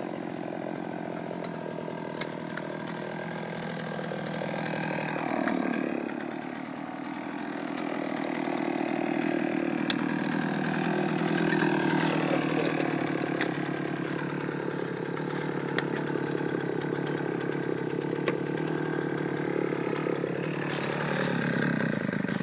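Chainsaw engine running at speed. Its pitch drops sharply about five seconds in and climbs back over the next few seconds, with a few sharp clicks along the way.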